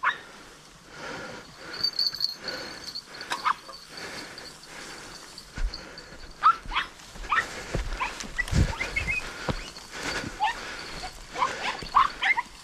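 Podenco hunting dogs giving short, high yelps and whines, scattered irregularly and coming thicker in the second half, with a couple of low thumps.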